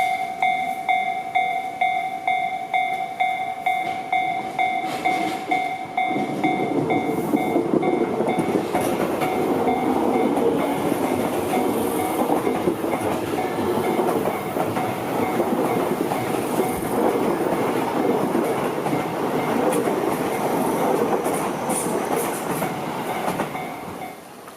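Japanese level-crossing warning bell dinging about twice a second, then a Tobu Tojo Line electric commuter train runs over the crossing from about six seconds in, wheels clacking over the rail joints while the bell keeps ringing. The noise drops away just before the end.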